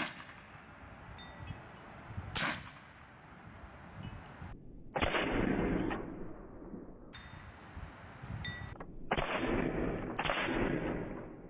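One sharp click from the pistol about two and a half seconds in, then gusts of wind rushing on the microphone that start and stop abruptly.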